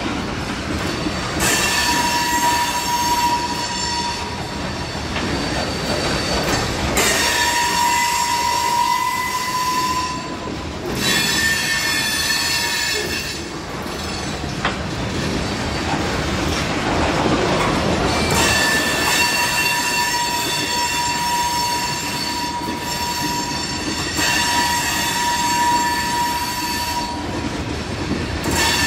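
Covered hopper cars of a freight train rolling past with a steady rumble of wheels on rail, and wheel squeal: high ringing tones that come and go in stretches of a few seconds.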